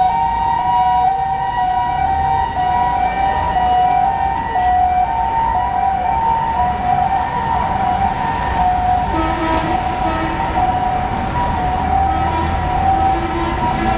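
Fire engine's two-tone siren sounding, switching back and forth between two steady pitches, with the truck's engine rumbling underneath.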